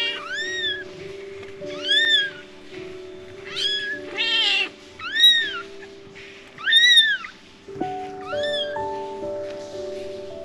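Newborn kitten mewing: about six short, high cries, each rising and falling in pitch, coming roughly every second and a half, with one harsher, buzzier call about four seconds in. Soft background music with held notes plays underneath.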